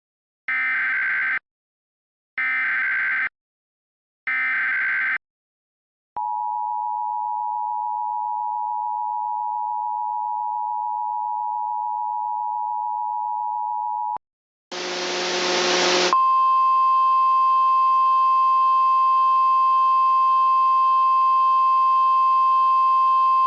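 Emergency Alert System tones: three short bursts of SAME header data, then the EAS two-tone attention signal held steady for about eight seconds. After a short burst of static, a single steady high tone with several fainter tones beneath it runs until the end.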